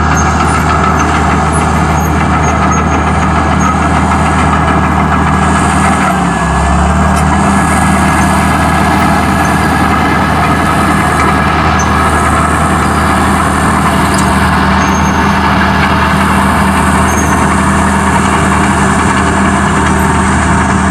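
Diesel engine of a roughly 18,000-pound bulldozer running steadily as it pushes and levels loose sandy soil; the engine's pitch sags briefly about six seconds in.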